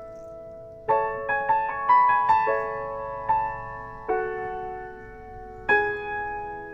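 Background music: a piano playing slow chords and single melody notes, each note struck and left to ring out and fade.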